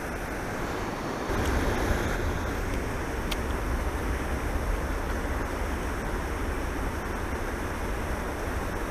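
Steady rush of water pouring from a culvert outfall into the river, with wind buffeting the microphone as a low rumble from about a second in. A faint single click about three seconds in.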